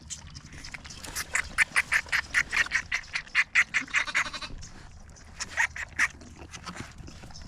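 An animal's rapid run of short, loud calls, about six or seven a second, lasting about three seconds, followed by a few more calls near the end.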